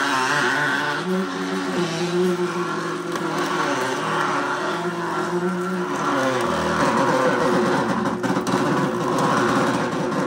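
AMZCHEF two-speed horizontal masticating slow juicer running on its slow speed, its motor and auger crushing beetroot pieces with a steady mechanical drone that turns rougher about six seconds in. The owner doubts the slow speed is strong enough for hard produce.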